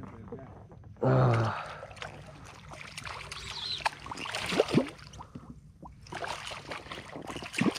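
Water trickling and splashing, with scattered knocks and handling noises on a fishing kayak while a landed fish is handled. A short, loud grunt comes about a second in.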